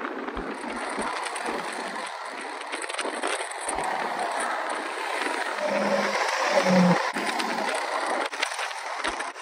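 Diesel semi-truck, a Freightliner Cascadia tractor pulling a dry van trailer, passing close on a highway: a steady rush of tyre and engine noise that builds to its loudest about six to seven seconds in, with a slightly falling hum as it goes by, then eases off.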